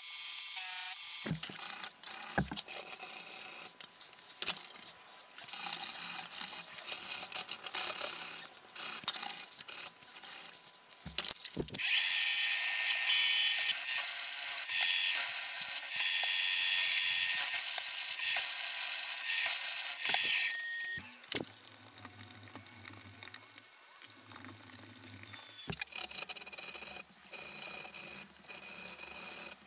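Milling machine end mill cutting a flat into a metal tool holder in short stop-start runs, then a steady run of about nine seconds as the mill drills small holes for grub screws. In the last few seconds a hand hacksaw strokes back and forth through the metal.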